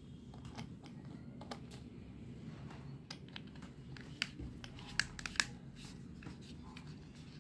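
Light plastic clicks and taps as the plastic handle and housing halves of a Le-bon F-30 handheld rechargeable fan are fitted and pressed back together, with a few sharper clicks in the second half.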